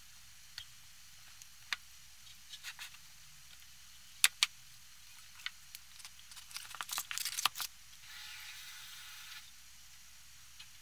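Food-preparation handling sounds: scattered light clicks and taps of things being set down and moved on a baking tray and worktop, two sharp clicks about four seconds in, and a quick run of crackly clicks near seven seconds, followed by a short steady hiss.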